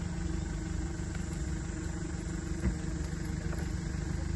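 A small engine running steadily at an even idle-like pitch, with one brief knock about two-thirds of the way through.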